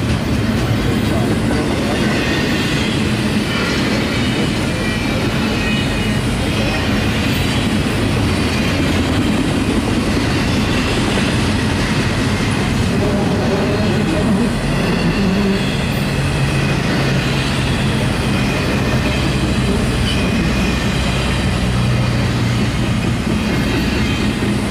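Double-stack intermodal well cars rolling past close by, steel wheels on rail making a steady rumble and clatter that never lets up.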